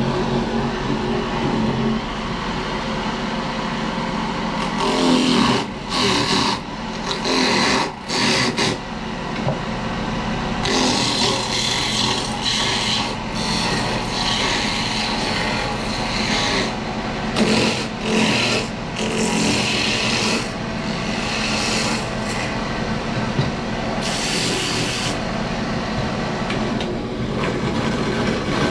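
Rasping, scraping strokes of a hand tool working a piece, in irregular bursts from under a second to several seconds long, over a steady low hum.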